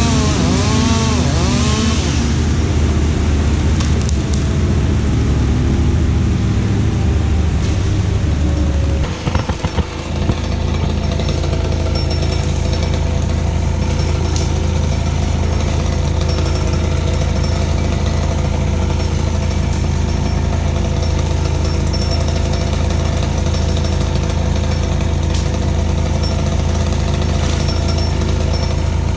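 Engine of tree-removal power equipment running, its pitch wavering up and down for the first couple of seconds. It dips briefly about nine seconds in, then runs at a steady speed.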